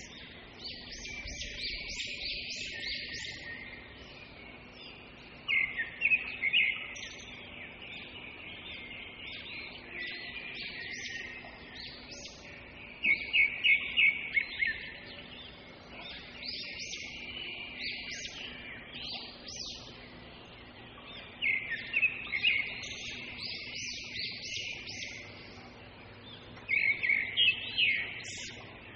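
A bird singing: short phrases of rapid high chirps, a burst every five to eight seconds, with fainter chirping between them and a faint steady low hum underneath.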